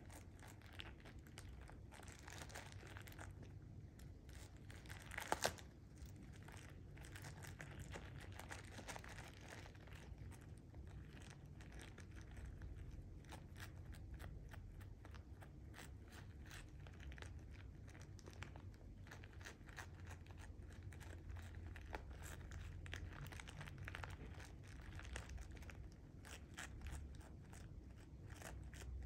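Quiet crinkling and crackling of a thin clear plastic treat bag as a cat pushes its head and paws into it, with crunching as the cat eats the treats. One louder crackle about five seconds in.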